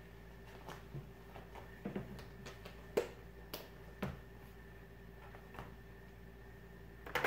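About half a dozen faint, scattered clicks and taps of makeup products and brushes being handled, over a low steady electrical hum.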